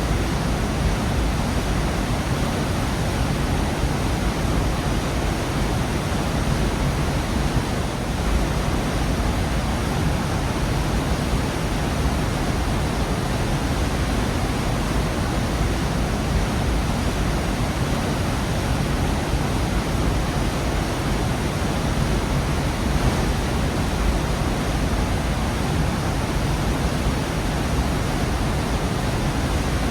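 Gorge waterfall: water falling and rushing in a steady, unbroken roar of noise, heaviest in the low end.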